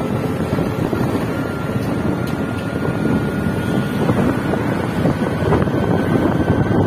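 Wind buffeting the microphone on a moving motorbike, with the bike's running engine and road noise underneath and a faint steady high whine.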